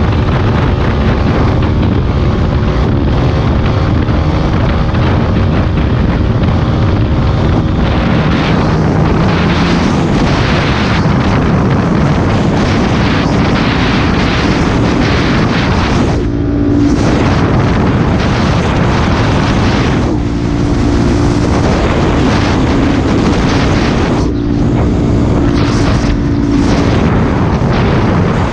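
Honda CRF450X supermoto's single-cylinder four-stroke engine running at road speed, mixed with heavy wind noise on the microphone. A few times the rush drops away briefly, leaving a steadier, lower engine note.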